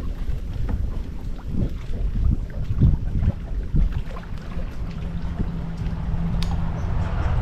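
Wind buffeting the microphone on a boat, with a low gusty rumble. A steady motor hum joins about five seconds in.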